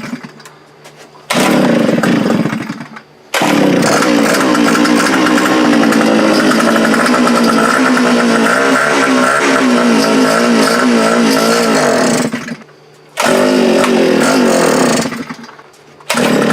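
A post-hole auger's two-stroke engine running in stretches, cutting out and catching again several times. The longest run lasts about nine seconds, its speed wavering as it revs up and down, the sign of a freshly repaired engine that still runs unevenly.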